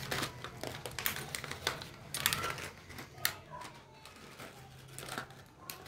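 Irregular crinkles of a clear plastic packet, with sharp clicks and taps of small plastic doll accessories being handled.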